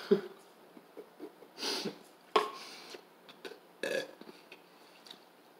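A teenage boy burping: a few short, separate throat sounds spread over several seconds, with quiet between them.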